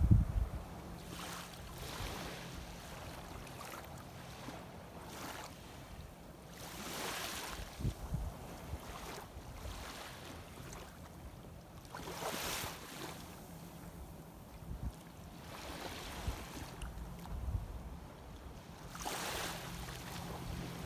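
Shallow sea water washing and sloshing in swells that rise and fade every few seconds, with wind on the microphone. A dull knock comes at the very start, the loudest sound.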